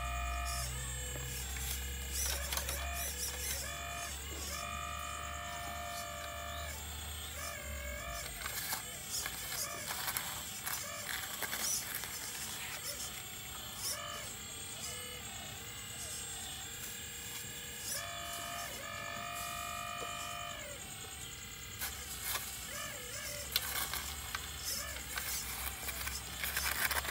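Electric hydraulic pump of a radio-controlled excavator whining, its pitch stepping and gliding up and down as the long arm and bucket work. Scattered short clicks and scrapes come from the bucket digging in sandy soil.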